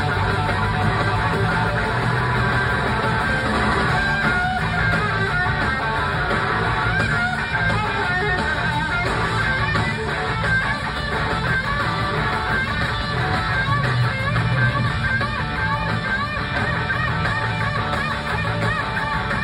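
Live rock band playing, with a lead electric guitar line of bending, wavering notes over bass and drums. It is heard through the venue's PA from out in the audience.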